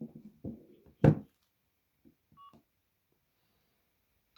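A sharp knock about a second in as the phones are handled, then a single short keypad beep from a late-1990s Samsung mobile phone as a key is pressed, with a couple of faint clicks around it.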